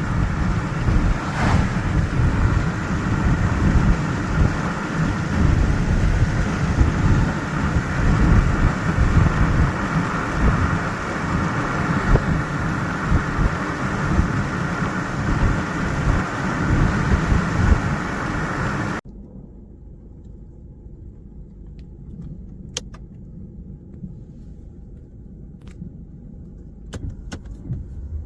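Car driving, with a steady rush of road and wind noise heavy in the low end. About two-thirds of the way through it cuts off abruptly to a much quieter low rumble with a few sharp clicks.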